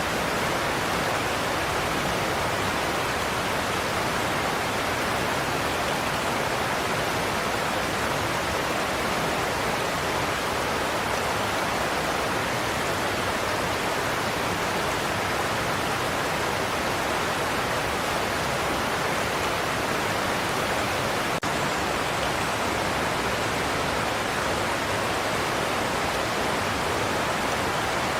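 Godafoss waterfall: a large volume of water pouring over the falls in a steady, unbroken rush of white noise.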